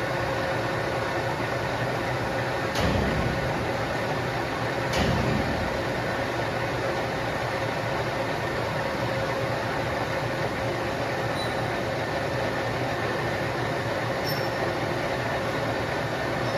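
Metal lathe running with a steady mechanical hum, with two louder clanks about three and five seconds in.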